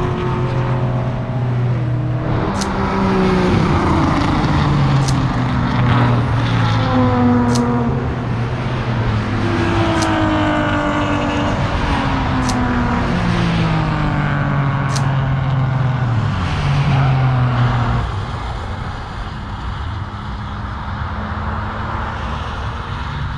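Several racing cars' engines passing on a circuit one after another, their pitch climbing and dropping as they accelerate and shift gears. The sound thins out and gets quieter about eighteen seconds in. Sharp faint ticks recur about every two and a half seconds.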